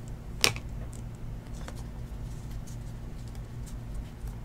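A stack of 2019 Panini Illusions football cards being flipped through by hand: a sharp click of card stock about half a second in, then faint scattered ticks of card edges over a steady low hum.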